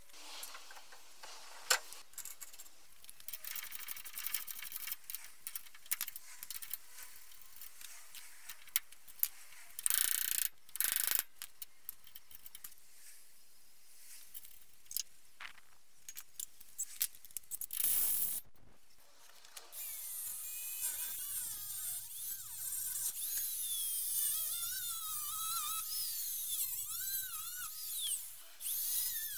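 Clicks, knocks and short metal scrapes of hand tools and a brake disc being fitted over a BMW E30 front wheel hub. Two short bursts of noise come about a third and two thirds of the way in, and over the last third a high, wavering whine sits over a steady hiss.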